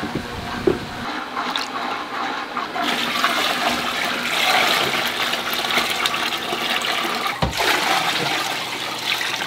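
Water poured from a bucket into a fish tank, splashing and gurgling into the water. The rush grows much louder about three seconds in, once the pour is in full flow.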